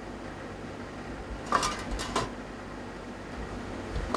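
Small sheet-metal smokestack parts clinking and knocking against a steel bench fixture as they are handled and set in place: a few sharp metallic clicks with a short ring about a second and a half in, and another sharp one near the end. A steady hum of shop machinery runs underneath.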